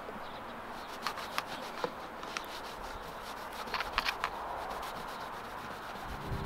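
Cloth rubbing and scrubbing on a car's window trim and glass, wiping off sticker glue softened by remover, with a few light scratchy clicks in the first few seconds.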